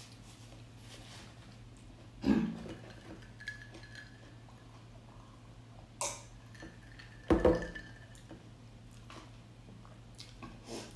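Dishes and cutlery knocking together at a meal: three separate clinks, the last the loudest, two of them leaving a brief ringing note.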